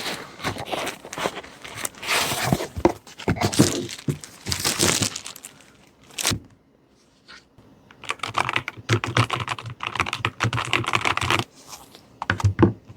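Typing on a Keychron K2 HE keyboard with Hall-effect magnetic switches: a dense, rapid run of key clicks. Earlier there is rustling handling noise, and a short pause comes about halfway through.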